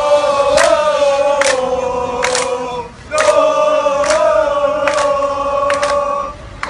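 Football supporters chanting together in two long, held lines that break briefly about three seconds in, with a sharp beat roughly every second.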